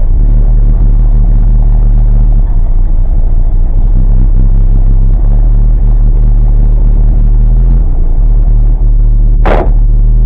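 Car engine idling close by as a steady low rumble. A short, sharp burst of noise comes about nine and a half seconds in.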